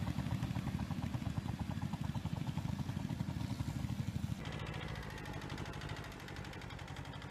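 Kubota compact tractor's engine running under load while pulling a two-bottom plough, with a fast, even pulse. About four seconds in, a cut switches to another small tractor's engine, running steadier and a little quieter.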